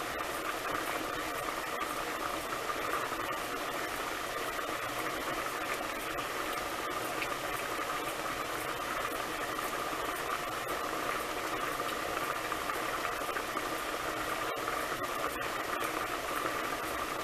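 A pot of ham hocks in broth at a rolling boil, bubbling steadily under a partly open glass lid.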